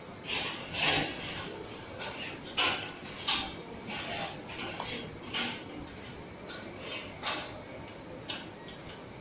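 A series of irregular sharp clinks and knocks, about a dozen, the loudest about a second in and near three seconds in.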